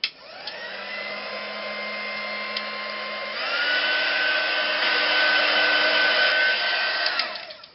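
Craft heat gun switched on with a click, its fan motor spinning up to a steady whine. About three seconds in it steps up to a higher, louder pitch, then winds down after it is switched off near the end.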